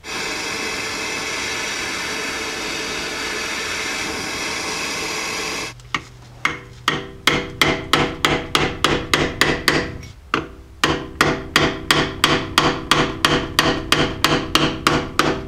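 A handheld gas torch hisses steadily as it heats a pressed-on steel dust shield on a transfer case output shaft, to expand it. The torch cuts off about six seconds in. Then a hammer strikes a chisel in quick, ringing metal blows, about three a second, with a short pause partway through, driving the shield off the shaft.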